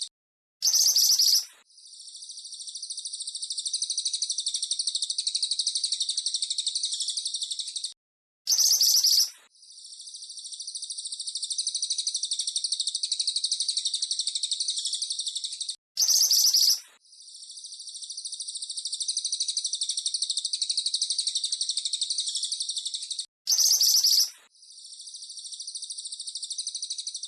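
Recorded cililin and mantenan birdsong played in a loop: a short, loud call, then a long, very fast high trill of about six seconds that swells gradually and stops abruptly. The sequence repeats four times, about every eight seconds.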